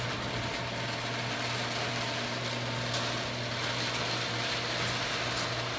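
Garage door opener motor running steadily as it lowers the door: an even, low mechanical hum.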